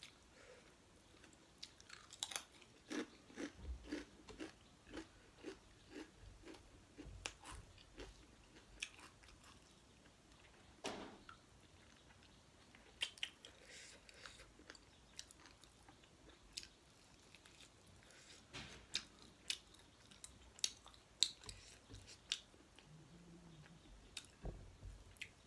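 Close-up eating sounds: a long irregular run of crisp crunches and chewing as potato chips and pork curry with rice are bitten and chewed.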